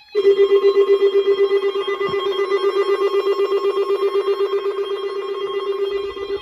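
Weather radio alert alarm: a loud electronic buzzing tone, steady in pitch and pulsing rapidly, starting abruptly at the very beginning.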